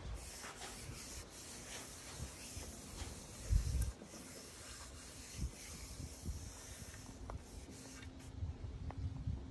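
A hand rubbing across the smooth, finished surface of a figured rosewood slab: a soft, steady hiss of skin sliding on wood that stops about 8 seconds in. A low bump about three and a half seconds in is the loudest moment.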